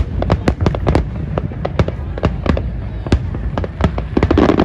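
Aerial fireworks going off in a rapid barrage: many sharp cracks and bangs, several a second, over a continuous low rumble, with a denser burst of crackling near the end.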